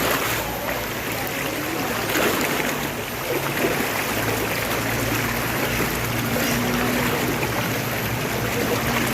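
Rushing water of a rainforest river running over rocks: a steady, unbroken rush.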